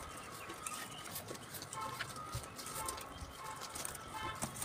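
Faint scattered clicks and light taps of a metal drawer channel being held against and marked on a plywood drawer side.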